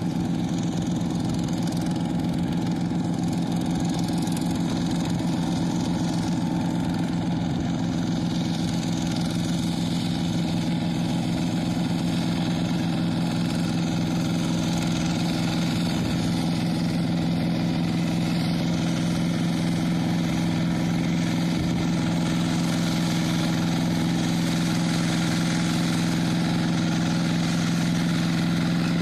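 Two-wheel walk-behind hand tractor's single-cylinder diesel engine running steadily as it plows a flooded rice paddy, slightly louder toward the end.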